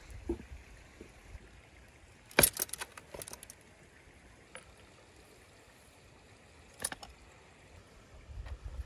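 Metal kebab skewers clinking together as a bunch of them is set down on flatbread: a quick rattle of sharp clinks about two and a half seconds in, and a single clink about seven seconds in.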